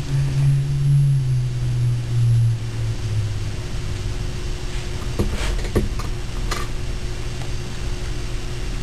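Steady low hum, louder for the first two and a half seconds and dipping a little in pitch, with a few short faint clicks about five to six and a half seconds in.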